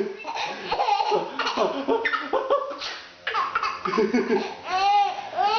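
A six-month-old baby laughing in repeated bursts, breaking into high, arching squeals of laughter near the end.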